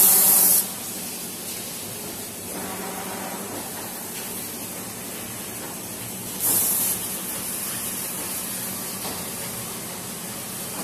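Toilet paper roll packing machine running with a steady motor hum. Twice, a short, loud hiss of compressed air comes from its pneumatic cylinders: once at the start and again about six and a half seconds in.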